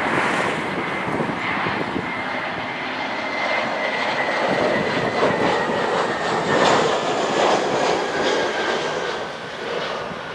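Jet airliner passing overhead: its engines make a loud, steady rush with a whine that slowly falls in pitch, and the sound eases off near the end.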